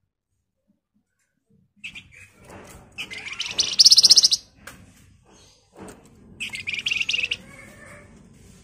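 A caged flamboyan (Horsfield's babbler) singing two loud, very rapid rattling trills, the first about three seconds in and the second about three seconds later, after a short silence at the start.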